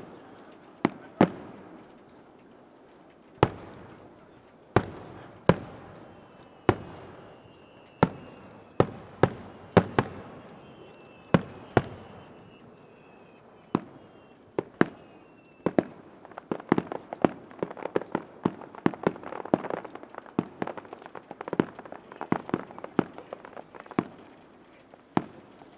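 Aerial fireworks shells bursting in sharp, irregularly spaced bangs. From about two-thirds of the way in they give way to a dense run of rapid crackling pops. A faint high whistle, falling slightly in pitch, sounds through the middle.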